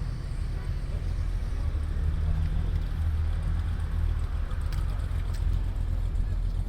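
Car engine idling, a steady low rumble that swells slightly a couple of seconds in.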